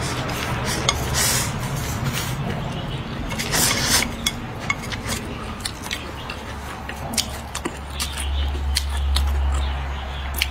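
Close-up eating sounds: a woman slurping broth from a bowl and chewing, with many small wet mouth clicks and two short hissy slurps. A steady low hum runs underneath.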